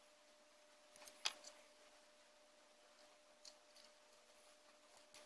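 Near silence with a few faint clicks and taps of small plastic model-kit parts being handled and fitted together; the sharpest comes about a second in, with smaller ones later. A faint steady hum runs underneath.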